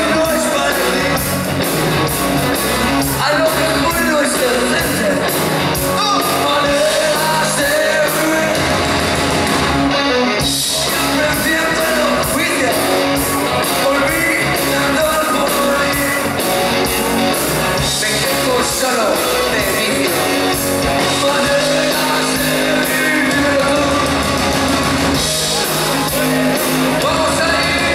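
Rock band playing live: electric guitars and a drum kit, with a male lead singer.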